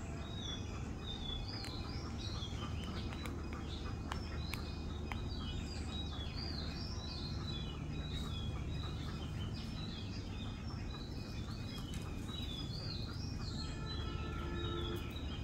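Small birds chirping and twittering continuously, many quick rising and falling notes, over a steady low background noise.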